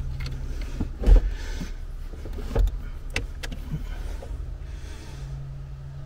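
Knocks and clicks of hands and a thin metal tool working in a car's boot-floor battery compartment around a newly fitted battery, over a steady low hum. The loudest knock comes about a second in and another about two and a half seconds in.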